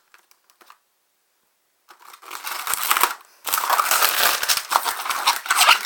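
Plastic packaging wrap being torn and crumpled, a dense crinkling crackle that starts about two seconds in and, after a brief pause, carries on steadily.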